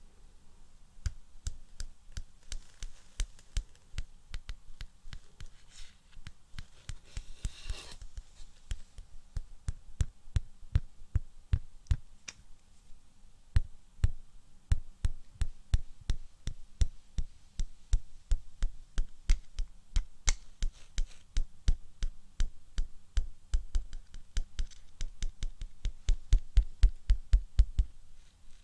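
Fingers tapping on hard objects close to the microphone: a long run of quick, irregular taps. There is a short scratchy rustle about seven seconds in, and the taps grow faster and louder near the end, about five a second, with deeper thumps.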